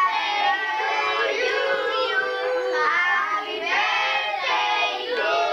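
A group of children singing together, most likely a birthday song sung to the child in front of the cake with lit candles.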